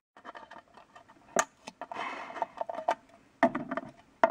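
A run of quick, irregular light clicks and taps, with a brief hiss about two seconds in.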